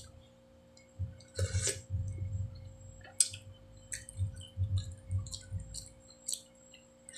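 Sipping noodle-soup broth from a metal spoon: a slurp about a second and a half in, and a few sharp clinks of the spoon against the bowl.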